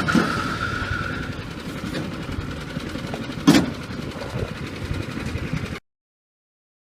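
Engine noise fading away, with one sharp knock about three and a half seconds in; the sound cuts off abruptly about six seconds in.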